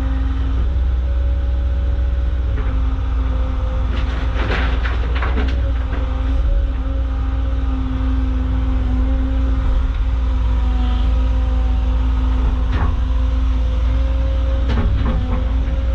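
Compact Caterpillar excavator's diesel engine running steadily under working load, with a held hydraulic whine. Short clattering knocks about four to five seconds in and twice near the end, as rocks shift in the bucket or drop into the truck.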